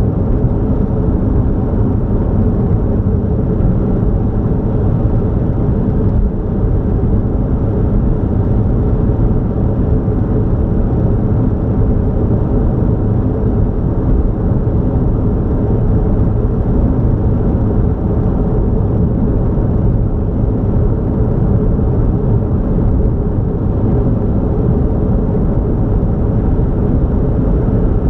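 A vehicle driving at highway speed: a steady, even low rumble of road and engine noise that does not change.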